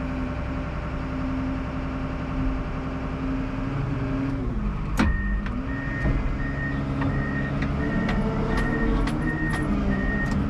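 Komatsu WA320 wheel loader's diesel engine running, heard from the cab; about halfway the engine note dips and there is a sharp knock. The backup alarm then beeps about twice a second as the loader reverses.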